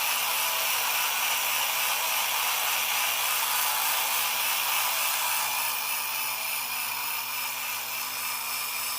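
A Road Rippers Ram Power Wagon toy truck's small built-in speaker giving out a steady, hissing whoosh with a faint low hum under it.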